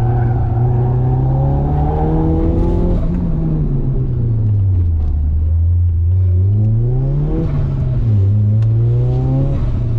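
Ford Laser TX3 Turbo's freshly rebuilt turbocharged four-cylinder engine pulling hard under acceleration. The revs climb for about three seconds, fall away, then climb twice more, dropping sharply near the middle and again near the end.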